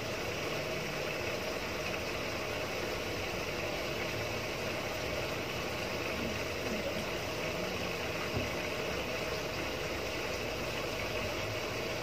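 Samsung Wobble WA65H4200SW top-loading washing machine running steadily as water pours into its tub to fill it.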